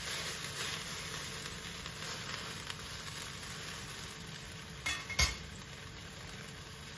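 Rib-eye steak sizzling steadily as it browns in a Saladmaster stainless-steel electric skillet, with two short sharp clicks close together about five seconds in.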